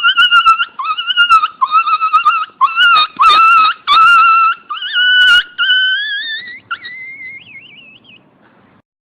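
Dog whining: a string of long, high whines that waver in pitch, with a few sharp clicks among them, fading away near the end.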